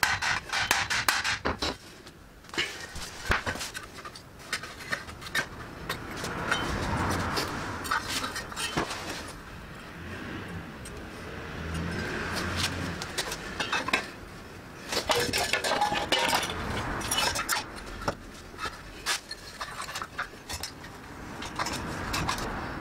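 Metal tools and metal parts clinking and clattering on a concrete floor, a string of sharp knocks with quieter handling between, as a homemade metal motorcycle wheel chock is handled and put together.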